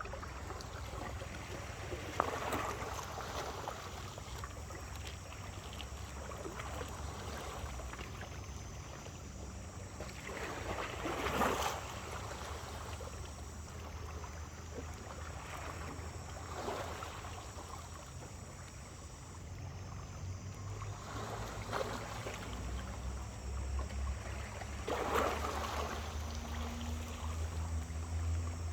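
Small waves breaking and washing up the beach every few seconds, over a steady low rumble and a thin, steady high buzz.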